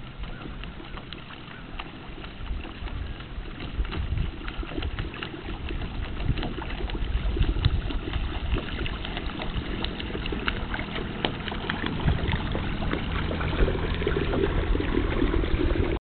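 Small choppy waves lapping and splashing with wind rumbling on the microphone, growing steadily louder.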